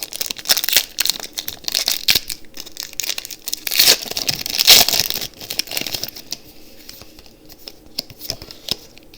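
Foil Pokémon TCG booster pack being torn open and crinkled by hand, with the crackling loudest about four to five seconds in and dying down to a few light rustles near the end.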